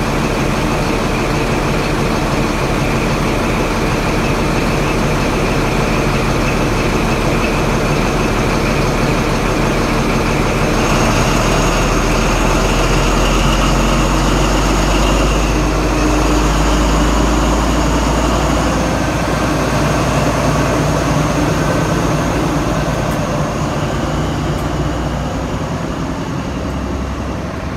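Diesel engine of an InterCity 125 (HST) power car running loud and steady at the platform. About ten seconds in it powers up, with a deeper note and a high whine joining as the train pulls away. It fades a little near the end as the power car moves off.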